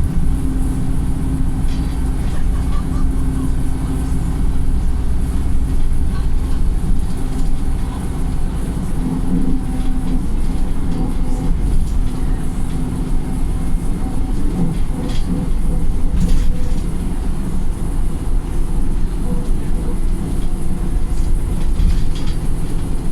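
Wright StreetLite single-deck diesel bus under way, heard from inside the saloon: a steady engine drone and road noise, with occasional clicks and rattles.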